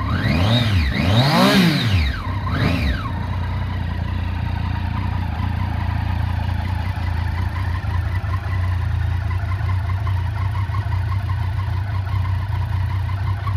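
Triumph Street Triple 675's inline three-cylinder engine, heard through an aftermarket Arrow end can. It is blipped three times in quick succession, the middle rev highest, then settles into a steady idle.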